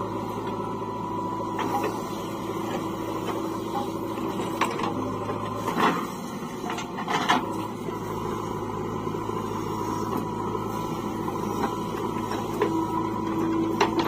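Diesel engines of a JCB 3DX backhoe loader and a Mahindra 475 DI tractor running steadily, with a few sharp clunks from the digging and dumping of soil.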